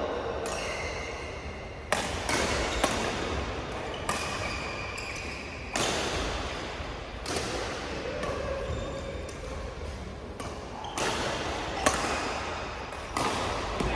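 Badminton rackets striking a shuttlecock in a rally: sharp cracks about every one to two seconds, each with a short echo.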